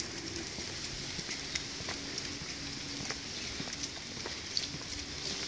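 Steady outdoor street ambience, a hiss with a faint low hum, broken by light scattered clicks of footsteps on a paved sidewalk.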